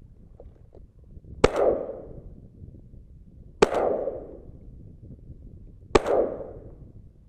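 Three shotgun shots about two seconds apart, each followed by an echo that dies away over about a second.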